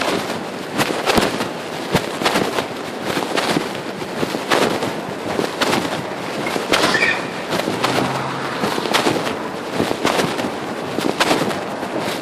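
Pocket fabric rubbing and scraping against a phone's microphone while the wearer walks: a dense, irregular run of crackles and knocks.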